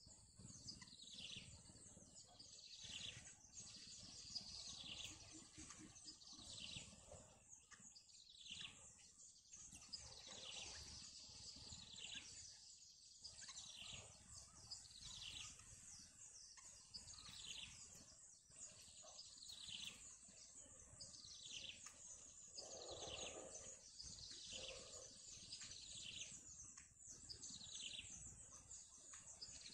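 Faint bird chirps, each a short high note sliding downward, repeated steadily about once every second or so over a low background hum.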